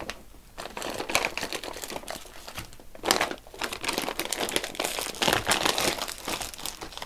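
Plastic and foil ration packets rustling and crinkling as they are pulled out of a green plastic MRE bag, with brief pauses between handfuls.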